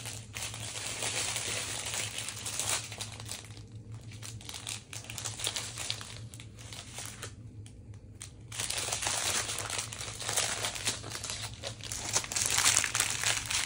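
Small plastic zip bags of diamond-painting drills crinkling and rustling as they are handled and sorted, quieter for a few seconds midway and louder toward the end.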